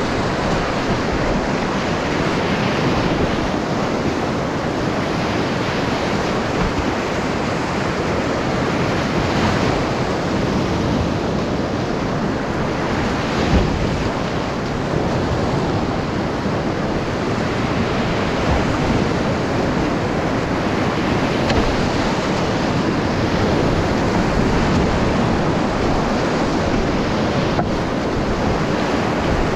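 Whitewater rapid rushing steadily and loudly around a kayak, heard from the boat itself, with splashing as the bow punches through waves; one louder splash about halfway through.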